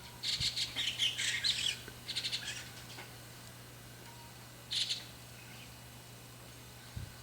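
A juvenile white-cheeked starling giving harsh, scratchy calls. A quick run of calls lasts about a second and a half, a shorter run follows, and a single call comes about midway through.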